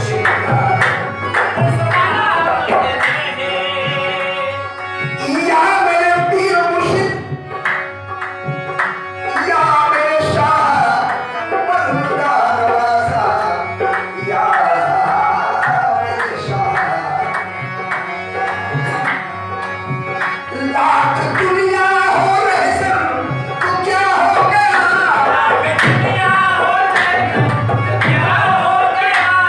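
Sufi qawwali: men singing to harmonium and hand-drum accompaniment, with a steady drum rhythm.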